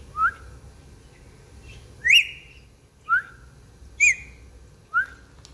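Pet parrot giving five short, rising whistled calls, about one a second, alternating between a lower and a higher pitch.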